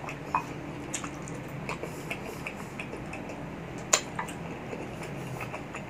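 Close-miked chewing of soft duck egg: small wet mouth clicks and smacks, with a wooden spoon scraping and knocking on a ceramic plate, the sharpest knock about four seconds in.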